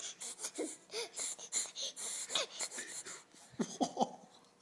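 A baby sniffling and breathing hard through the nose, short wheezy sniffs two or three a second, with a few brief little vocal sounds near the end.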